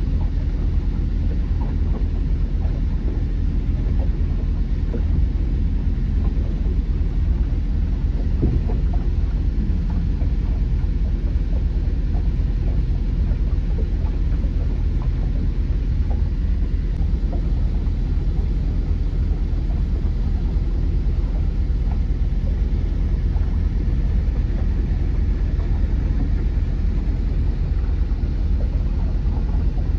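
A motor cruiser's engine running steadily while the boat is under way: an even, low rumble.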